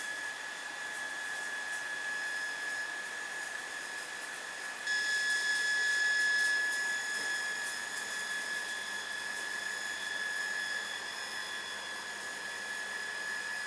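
Misting sprinklers spraying water over hydroponic fodder trays: a steady hiss with a steady high-pitched whine through it, stepping up louder about five seconds in.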